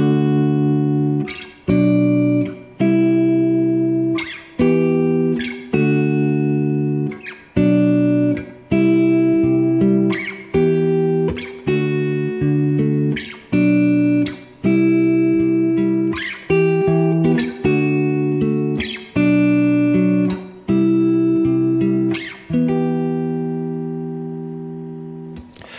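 Clean electric guitar, a Fender Telecaster, fingerpicked in three-note skipped-string chords with thumb, index and ring finger, moving through E minor, D, B minor and C. A chord is plucked roughly every second and rings down, and the last one is left to ring for a few seconds near the end.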